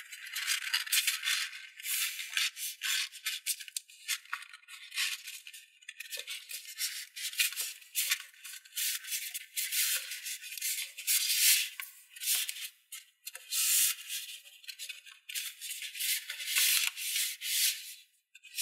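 Folded origami paper rustling and crinkling in irregular bursts as hands crease and squeeze it, with a couple of brief pauses.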